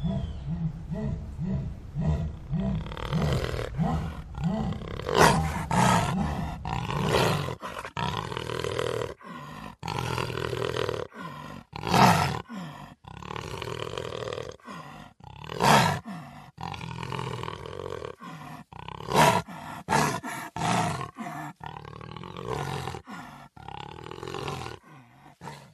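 Jaguar calling: a rhythmic series of low grunts, about two a second, the sawing call, gives way after several seconds to loud, irregular roars and snarls with short gaps between them.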